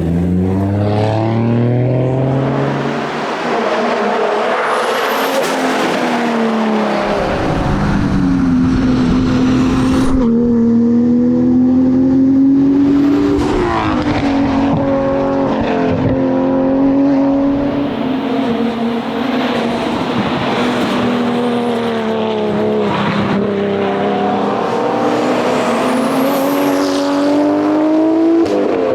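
Nissan R33 GT-R's RB26DETT twin-turbo straight-six driven hard. The engine pitch climbs and then drops several times as it shifts through the gears.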